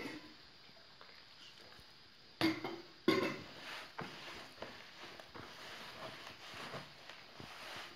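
Hands mixing and kneading flour and water into bolani dough in a plastic basin: irregular soft handling noises, with two louder bumps about two and a half and three seconds in.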